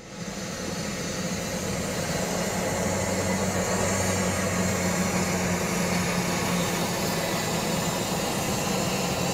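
Heavy diesel truck engines running at low speed in a steady drone, with road noise.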